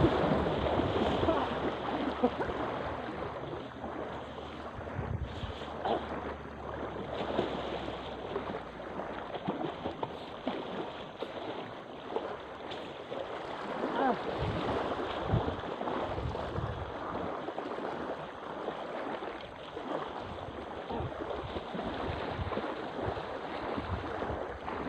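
Lake water splashing and lapping as people wade and swim, with wind buffeting the microphone; loudest in the first couple of seconds as a man splashes in.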